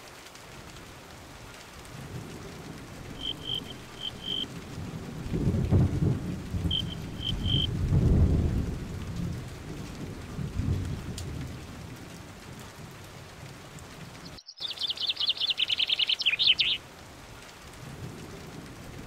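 Rain falling with a low rumble of thunder that swells in the middle. A bird chirps a few short high notes early on, and a rapid high bird trill follows near the end.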